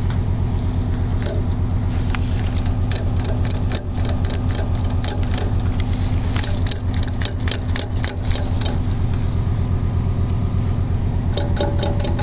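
Lister D single-cylinder stationary engine running with a steady, even low beat. Light metallic clicking and tapping comes over it in a spell through the middle, and again briefly near the end.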